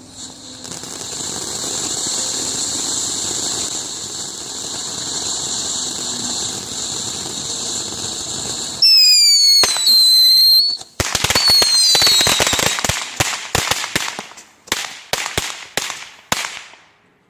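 Backyard consumer fireworks: a steady hiss for about nine seconds, then loud whistles falling slightly in pitch, then a rapid run of sharp pops and bangs that thins out near the end.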